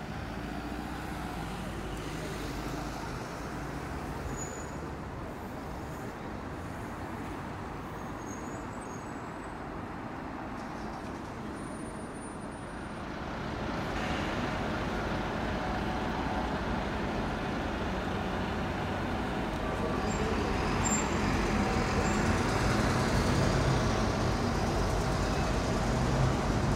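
City street traffic: cars and buses passing, a steady wash of engines and tyres on the road. It grows louder about halfway through, and a deeper engine hum joins in over the last few seconds.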